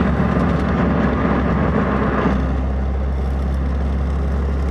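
Nissan 350Z's 3.5-litre V6 engine running with road and tyre noise, heard from inside the cabin through a turn. The engine's low drone stays steady while the broader noise eases off about two and a half seconds in.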